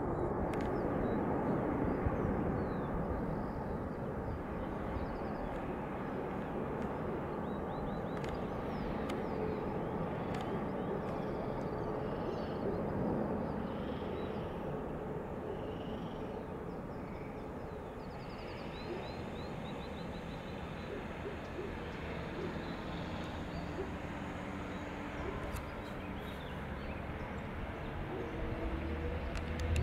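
Jet engines of an Airbus A320neo with CFM LEAP-1A engines, heard from afar through approach, touchdown and rollout: a steady rushing noise with a faint low hum, slowly fading. A few faint chirps come about two-thirds of the way through.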